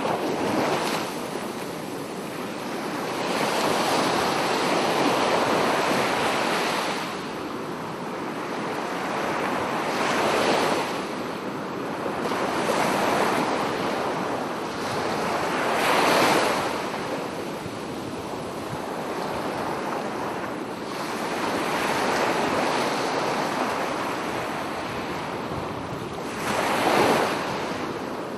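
Waves breaking on a beach: a continuous wash of surf that swells and falls away in several surges, the sharpest about halfway through and near the end.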